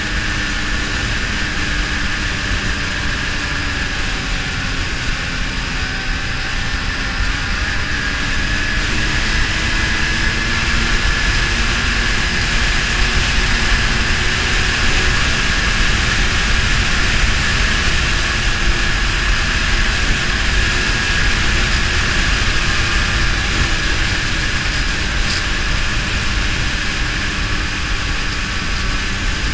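Ski-Doo snowmobile engine running under way, a steady drone with a high whine over it. It grows a little louder about a third of the way in and eases again near the end.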